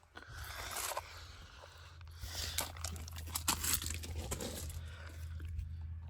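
Rustling, scraping and irregular clicks of hands working at a car's plastic rear marker light and the trim around it, over a steady low hum.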